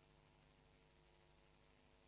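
Near silence: a faint, steady hum and hiss with no distinct events.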